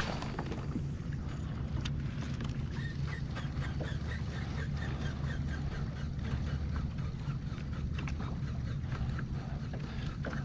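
Water lapping against a plastic kayak hull under a low, steady rumble, with faint quick ticking as a spinning reel is cranked through a retrieve.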